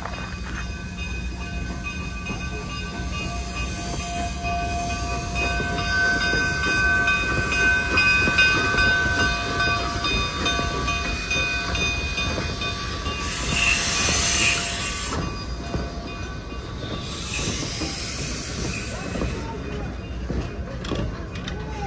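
Narrow-gauge Baldwin K-36 2-8-2 steam locomotive No. 489 and its passenger coaches rolling slowly past, with a low rumble and steady high-pitched wheel squeal. There are two bursts of hissing about halfway through.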